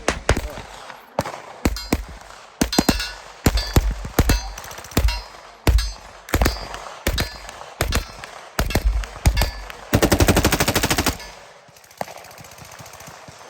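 Gunfire: a string of sharp gunshots at uneven spacing, some close together. About ten seconds in comes a rapid burst lasting about a second, then the shooting stops.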